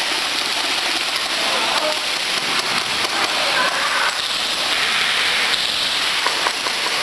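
Indistinct chatter of a group of people under a steady, loud hiss.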